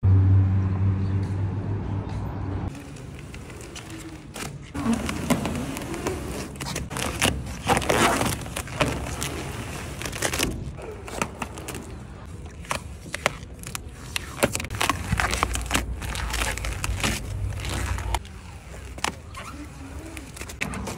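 Vinyl wrap film being peeled by hand off a truck's painted body panels, crackling and tearing in irregular bursts. It opens with a steady low hum that stops about three seconds in.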